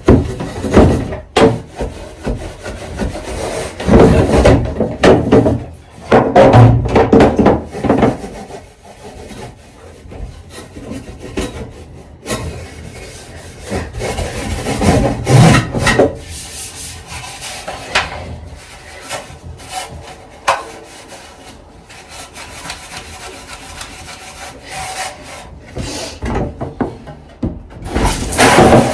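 Scrubbing plastic fridge shelves and boxes with dish soap: irregular rubbing and scraping, louder in the first half and quieter later on.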